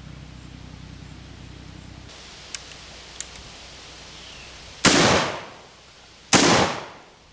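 Two shotgun blasts of double-aught buckshot from a Mossberg, about a second and a half apart, each ringing away over about a second. A couple of faint clicks come shortly before the first shot.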